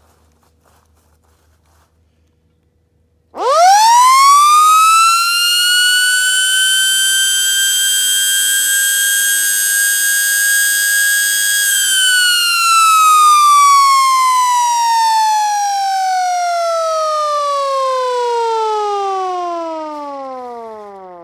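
Outdoor warning siren sounding its weekly test: about three seconds in it starts and rises quickly to a steady high, loud tone. It holds that tone for about eight seconds, then slowly falls in pitch and fades away near the end.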